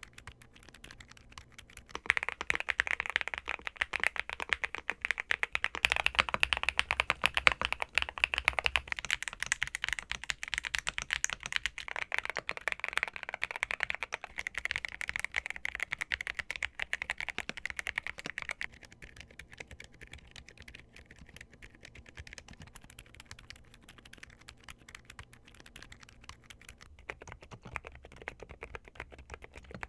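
Continuous fast typing on a mechanical keyboard fitted with Gamakay Phoenix silent linear switches, giving dense, dampened key clicks. The typing gets louder about two seconds in and drops back to a softer level a little past the middle.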